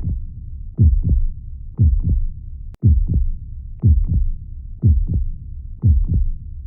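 Heartbeat, slow and even: a double 'lub-dub' thump about once a second, six beats in all, over a steady low rumble. The sound briefly cuts out just before the fourth beat.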